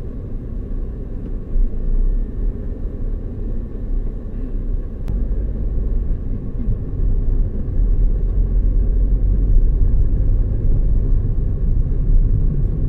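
Car driving, with a steady low road and engine rumble heard from inside the cabin. A single short click comes about five seconds in.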